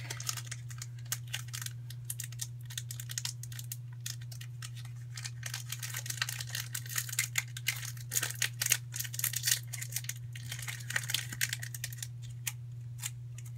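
Foil Pokémon booster-pack wrapper crinkling and rustling as it is torn open and handled, a dense run of small crackles that thins out near the end, over a steady low hum.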